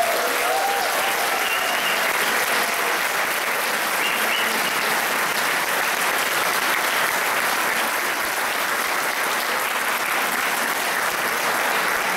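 Audience applauding steadily throughout, dense clapping from a large crowd, with a few voices calling out in the first couple of seconds.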